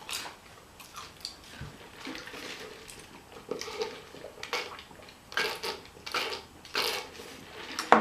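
Close-up chewing and wet mouth sounds of someone eating a mouthful of food, in irregular smacking strokes that get busier about halfway through.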